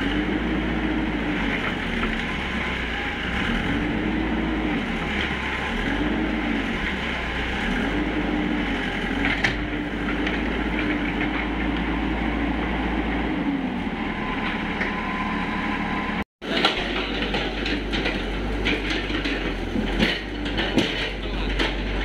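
Hitachi mini crawler excavator's diesel engine running, its pitch rising and falling again and again as the arm and bucket work. After a brief break a little past halfway, clanks and knocks of the bucket digging into clay come through more sharply.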